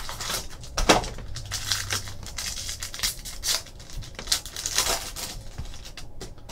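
Trading card box and its wrapper being opened and handled by hand: irregular rustling, tearing and scraping of cardboard and plastic.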